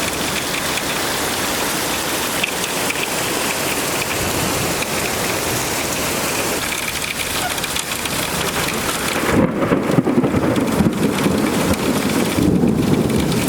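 Heavy thunderstorm rain pouring down in gusty wind. About nine seconds in a louder, deeper rumble builds and lasts for several seconds.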